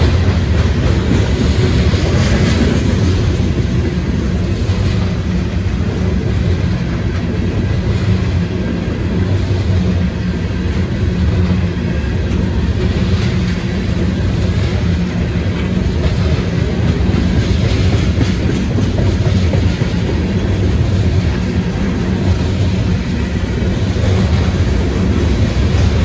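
Freight train of coal hopper cars rolling past: a steady, loud rumble of steel wheels on the rails.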